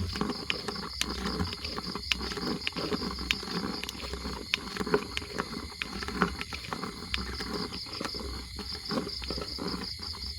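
Night insects, crickets by their sound, trilling steadily in a high pulsing chorus, over close crackling rustles and sharp clicks of movement through dry leaves and vegetation. The rustling stops near the end.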